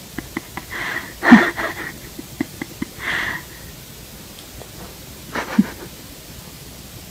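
Short breathy puffs and sniffs close by, four of them, the loudest about a second and a third in, with small light clicks between them.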